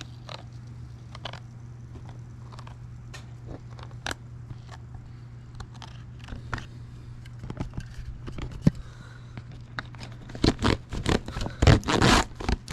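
Scattered clicks and light taps of hand work on parts, over a steady low hum; about ten seconds in, a loud spell of scraping and clattering begins.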